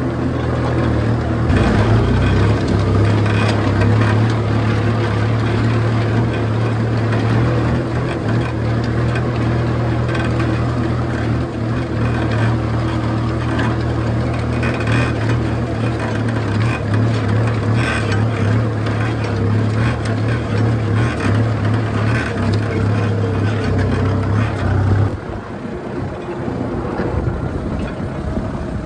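Kubota M6240 tractor's four-cylinder diesel engine running steadily under load while pulling a disc plow through dry soil. The engine note drops suddenly about three-quarters of the way through.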